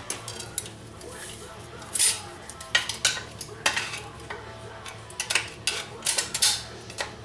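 Steel retaining ring and backing plate clicking and scraping against the aluminium TH400 transmission case as the ring is worked into its groove by hand: irregular metallic clicks, the loudest about two seconds in and a quick run of them near the end.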